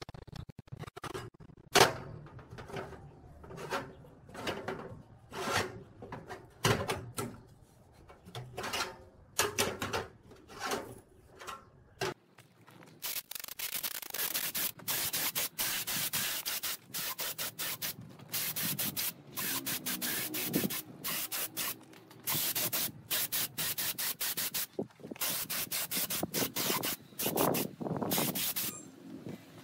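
Hinged square-tube metal table frame being folded by hand, its tubes and hinge joints clanking and rattling in irregular knocks. About halfway through this gives way to an air spray gun hissing in repeated bursts as paint is sprayed onto the frame.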